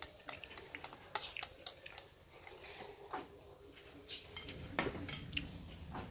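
Eating utensils clinking against a ceramic bowl: a scatter of sharp, irregular clinks, some with a brief ring.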